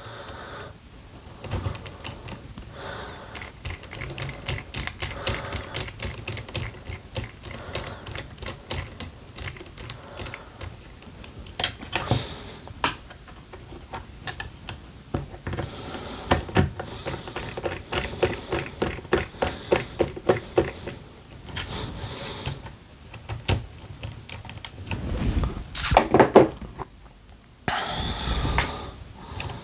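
Rapid, uneven clicking and ticking of small plastic and metal RC car parts being worked by hand, as the steering turnbuckles are fitted, in runs of several clicks a second. Near the end there is a louder clatter of handling.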